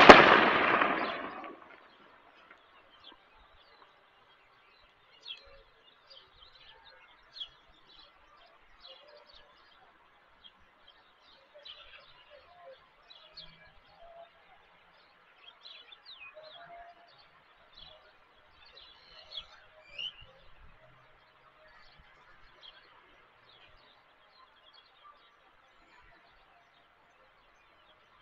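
Scattered faint bird chirps, short calls repeated irregularly. A sudden loud burst of noise at the very start dies away over about a second and a half.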